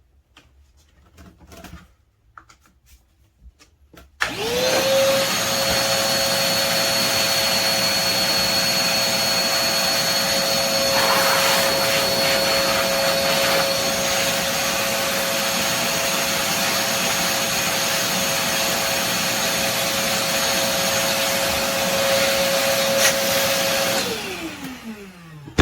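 Koblenz WD-2L portable wet/dry vacuum running in blower mode: after a few soft handling clicks, the motor switches on about four seconds in, its whine rising quickly to a steady pitch over a loud rush of air. It runs steadily for about twenty seconds, then is switched off near the end and the whine falls in pitch as the motor spins down.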